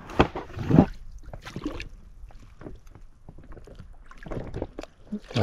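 Water splashing, with irregular knocks and clatter, as a hooked carp is brought to the surface and scooped into a landing net; the loudest splashes come in the first second.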